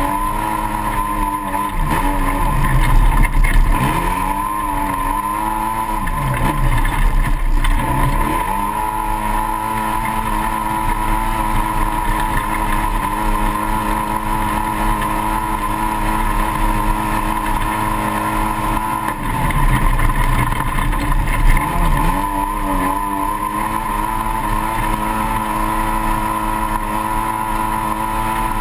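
Race-built 2008 Polaris RZR side-by-side's twin-cylinder engine, heard onboard, running hard at high revs with a steady high whine over it. The revs drop and climb back several times in the first eight seconds and again around twenty seconds in, as the throttle is lifted and reapplied; in between they are held steady.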